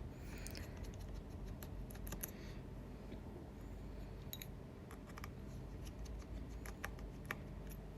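Faint, irregular small metal clicks and ticks, in scattered clusters, as a precision screwdriver works out the tiny screws of a shield plate inside an iPhone 11 Pro Max.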